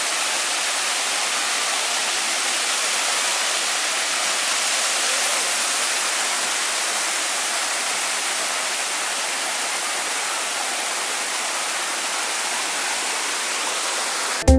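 Waterfall spilling over a dam's weir: a steady, even rush of falling water, hissy with little bass.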